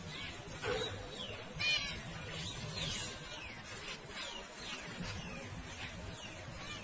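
Zebra finches calling: many short falling chirps throughout, with a louder nasal, beeping call at the start and another about a second and a half in.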